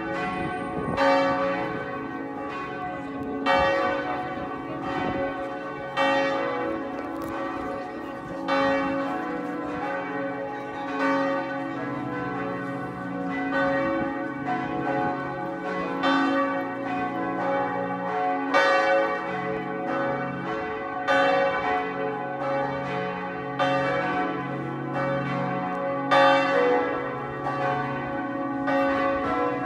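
Several large church bells swinging in a tower peal, their strokes overlapping in an uneven rhythm of about one a second, each stroke ringing on under the next: the ringing-in before a church service.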